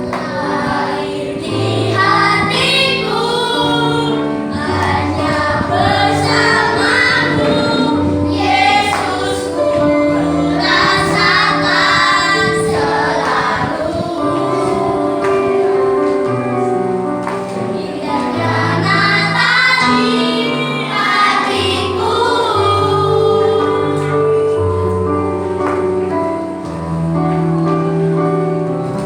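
Children's choir singing a Christmas song over instrumental accompaniment with long held notes.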